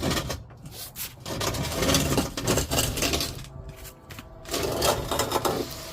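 Fuel tank scraping and rubbing against the underbody as it is pulled out from under a Land Rover LR4, in irregular bursts of dragging, the longest in the middle and another near the end.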